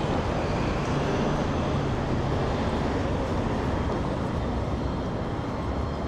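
Steady street traffic noise, with a low engine hum from vehicles running close by.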